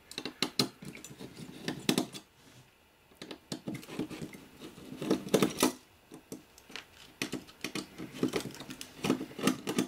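Hands handling a small circuit board on its metal bracket: a run of irregular light clicks and taps of fingers and small metal parts.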